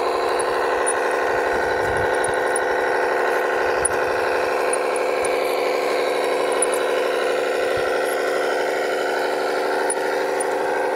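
Small electric motor whining steadily at an even pitch, with faint light ticking over it.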